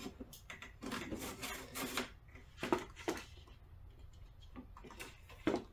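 A large sheet of glossy photo paper rustling and rubbing as it is slid into a printer's rear paper-feed slot, with a few faint clicks and taps.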